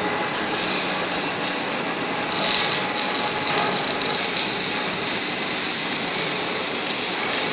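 Electric drive motor and gearbox of a heavy welding roller rotator running steadily, with a steady high hiss.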